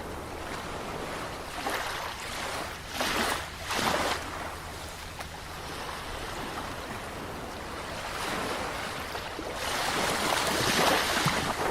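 Ocean waves washing onto a shore: two short breaking surges about three and four seconds in, then a longer swell of surf rising near the end.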